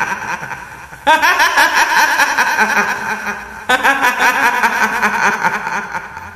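Ghostly kuntilanak laugh: a high-pitched woman's cackle in quick repeated pulses, breaking out afresh about a second in and again past the middle, and fading away near the end.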